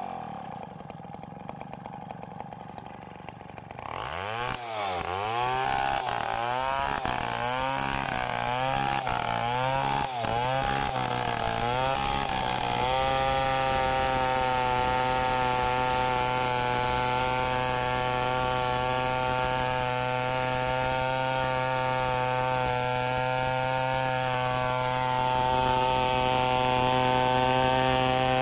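Large chainsaw running slowly and quietly for the first few seconds, then its engine speed rising and falling repeatedly. From just under halfway it holds steady high revs under load as it rip-cuts lengthwise through a coconut log.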